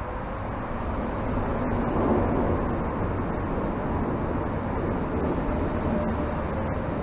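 Low, steady rumble of traffic on Interstate 81 carried down into the concrete tunnel beneath it, swelling a little about two seconds in and then holding.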